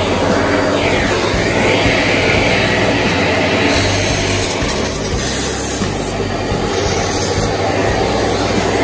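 Small vacuum cleaner running steadily as it sucks dust out of an opened iMac, its airflow pitch shifting up and down briefly near the start as the nozzle moves.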